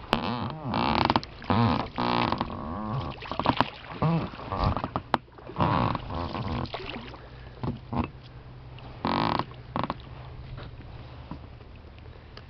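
Oar mounts of an inflatable boat creaking and squeaking in irregular bursts as the oars are worked, most of them in the first half; these mounts creak badly.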